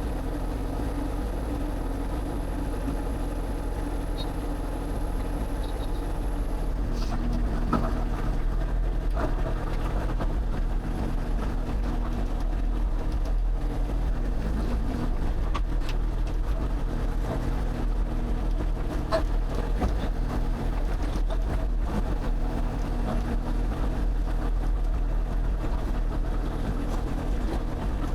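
Excavator's diesel engine running steadily, with scattered short knocks and clanks as the machine works. The engine gets slightly louder about seven seconds in.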